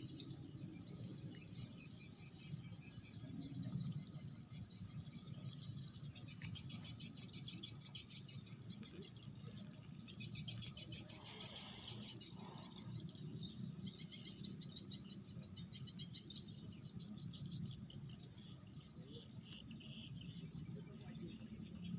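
Crickets chirping in fast pulsed trills, a continuous high chorus that swells and fades in places, over a faint low rumble.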